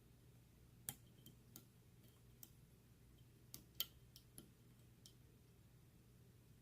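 Faint, irregular small metallic clicks of a lock pick working the pins of a pin-tumbler challenge lock under a tension wrench, about ten in all, the sharpest nearly four seconds in.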